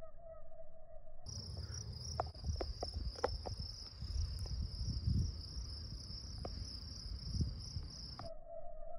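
Crickets chirping steadily on a summer night, with a low rumble underneath and a few light clicks about two to three seconds in.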